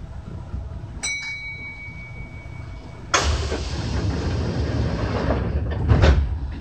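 Inside a stopped Kintetsu 6020-series commuter train: a single ding that rings on for about two seconds, then about three seconds in a sudden loud hiss of compressed air, typical of the air brakes releasing before departure, with a couple of clunks near the end.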